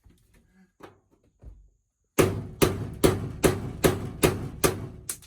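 Hammer striking metal in a steady run of about eight sharp, ringing blows, a little over two a second, starting about two seconds in.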